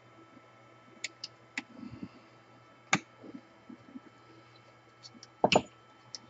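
Light handling clicks and knocks as a portable band saw wheel and its rubber tire are worked by hand, a few scattered taps with a sharper click about three seconds in and a couple of louder clacks about five and a half seconds in.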